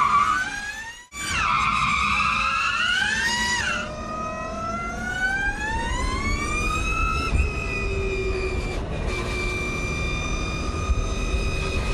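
Electric motors of the Mustang Mach-E 1400 drift car whining, the pitch swinging up and down as it drifts, then cutting off abruptly about a second in. The whine returns, climbs steadily in pitch through the middle and then holds level over a low rumble.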